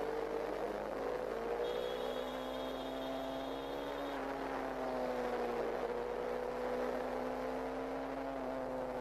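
Motorcycle engine running while riding, its pitch rising and falling gently with the throttle, over steady wind and road noise.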